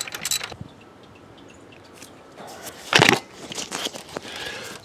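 3/8-inch ratchet with a 12 mm socket clicking as it backs out a bolt, stopping about half a second in. About three seconds in comes a short metallic clatter, followed by a few light metal clinks.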